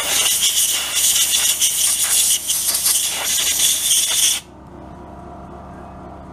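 Compressed air hissing hard from an air blow gun pressed against a small carburetor part to blow the dirt out of its passages, fluttering as it plays over the part. The hiss cuts off suddenly about four seconds in, leaving a quieter steady hum.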